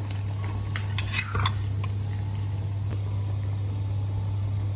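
A utensil clinking and scraping against a cooking pot of white radish simmering in water, with a quick cluster of clinks about a second in, over a steady low hum.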